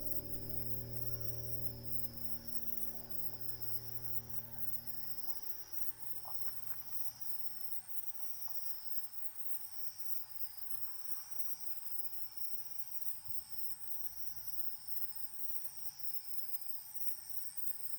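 Insects singing in steady, repeated high trills, with a second, even higher trill joining about six seconds in. Background music underneath fades out over the first six or seven seconds.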